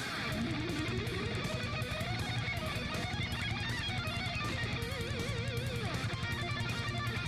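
Background music: electric guitar playing bending, vibrato lead lines over a steady rhythm.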